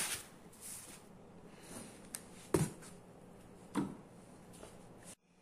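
Foam packing and a cardboard box being handled: soft rustling with a few light knocks, the loudest about two and a half and nearly four seconds in.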